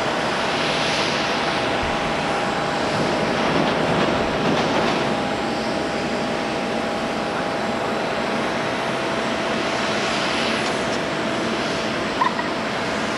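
Boeing 777-300ER's GE90 jet engines running at taxi power: a steady rush with a faint, even whine. A brief knock near the end.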